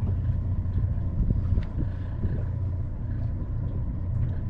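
A motor runs with a steady low hum, and a few faint clicks sound over it as a cast net is hauled in by hand.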